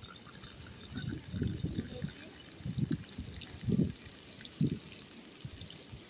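Tea trickling in a thin stream from a samovar's tap into a glass mug as it fills.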